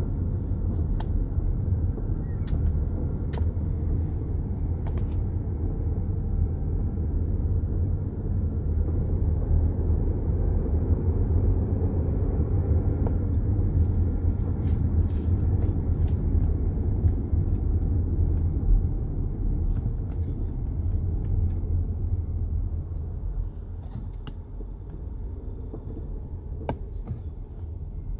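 Inside the cabin of a BMW X5 (F15) being driven: a steady low road rumble with scattered sharp clicks and knocks, the front suspension noise being recorded. The rumble eases near the end.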